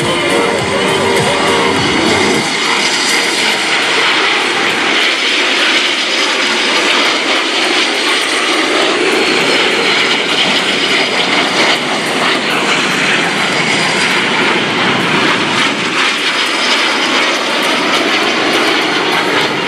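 Steady roar of L-39 Albatros trainer jets' turbofan engines as the jets take off and climb out in close formation. It plays over background music that fades out about two seconds in.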